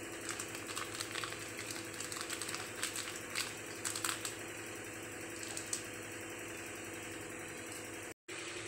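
Metal spoon clinking and scraping against a steel bowl and a plastic jar while scooping a thick paste onto sliced onions: quick, irregular light clicks that stop about six seconds in. A steady low hum runs underneath.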